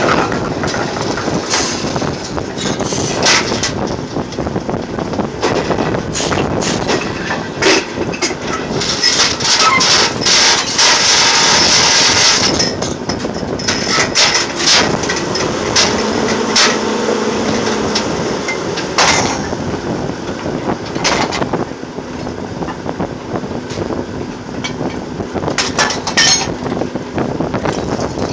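Drilling rig floor machinery running steadily, with repeated sharp metal clanks and knocks and a few seconds of loud hissing about nine seconds in; a low steady hum comes in over the last third.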